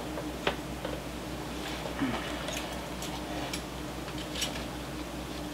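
Light clicks and rustling from handling items in a cardboard subscription box as a folded t-shirt is pulled out, over a low steady hum.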